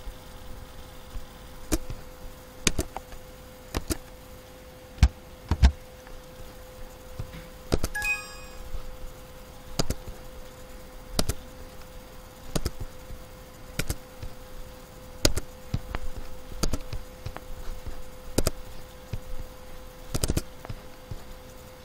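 Computer mouse and keyboard clicks, sharp and irregular, about one every second or so, over a faint steady hum. A brief ringing tone sounds about eight seconds in.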